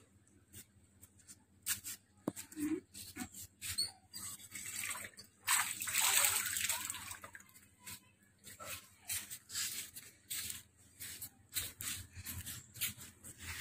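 Tap water splashing into a steel bowl about five to seven seconds in, amid scattered small splashes and clicks.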